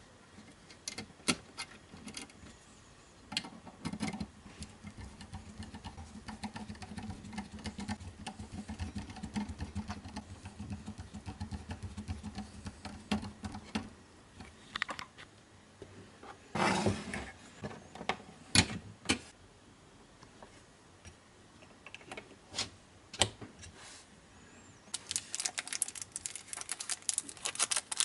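Small clicks, ticks and scrapes of wires being fitted into a plastic screw terminal block and a screwdriver turning the terminal screws, with a low rumble of handling for several seconds. Near the end, a plastic bag crinkling as a remote control is handled in it.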